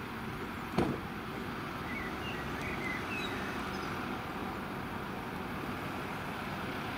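Steady rumble of fire engines running at the scene, with a single sharp knock about a second in.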